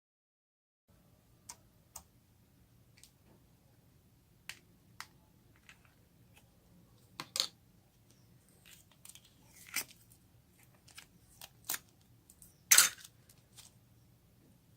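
Homemade slime being worked by hand, making scattered sticky clicks and pops that start about a second in; the loudest pop comes near the end.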